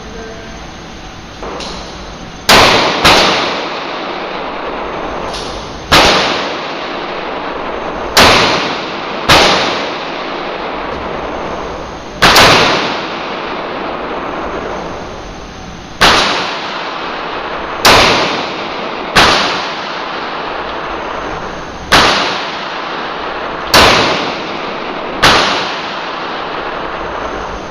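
Kahr CM9 9mm pistol fired about a dozen times at a slow, uneven pace, each shot a sharp crack followed by about a second of echo. Two much fainter pops come before the first loud shot.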